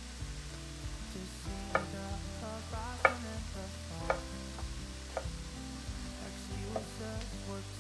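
Chef's knife slicing through an eggplant and striking a wooden cutting board: about five sharp chops roughly a second apart, over soft background music.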